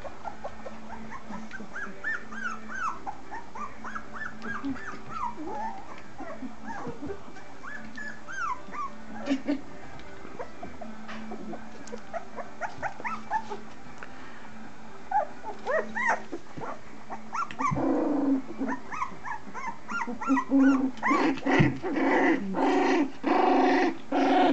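Young puppies squeaking and whining in many short, high cries that rise and fall in pitch. From about eighteen seconds in, louder growls and yaps crowd in as the litter plays together.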